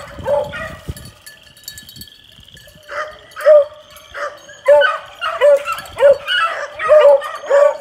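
Hound puppies yipping in short, high calls: a few at first, a pause of about two seconds, then a steady run of yips at about two a second from about three seconds in.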